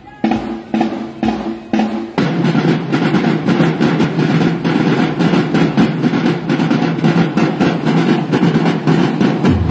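Drum line of marching drums playing together: a few spaced unison hits, then from about two seconds in a dense, continuous roll-like pattern. A deeper bass drum comes in near the end.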